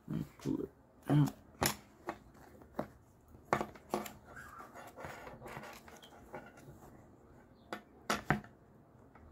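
Handling noise from a leather knife sheath as a fire-starter rod stuck in its loop is tugged and worked loose: irregular rubbing, scraping and clicking, with a louder knock about a second in and another near the end.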